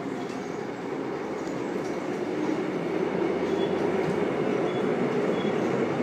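Seoul Metro Line 1 resistance-control electric train running through an underground tunnel, a dense rumble of wheels and traction motors growing steadily louder.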